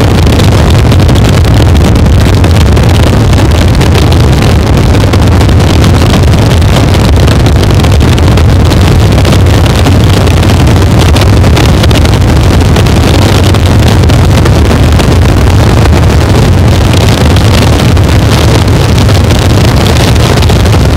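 Harsh noise wall: a dense, unchanging wall of heavily distorted electronic noise at near full loudness, with the strongest part a deep low rumble under a hiss.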